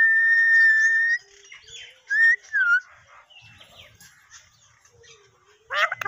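Alexandrine parakeet whistling: one long, steady whistle lasting about a second, then two short whistled notes about a second later, one rising and one falling. Just before the end it breaks into harsh squawks that fall in pitch.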